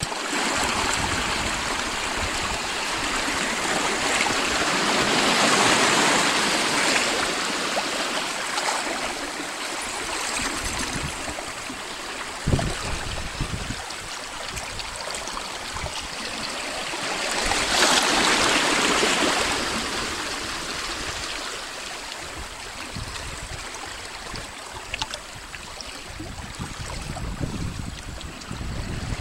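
Small ocean waves washing and gurgling over rocks and pebbles at the water's edge, swelling louder twice as larger sets come in. A single low thump near the middle.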